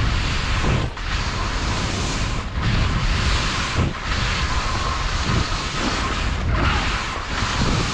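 Skis hissing through fresh snow, with wind rushing on the microphone. The noise dips briefly every second or two.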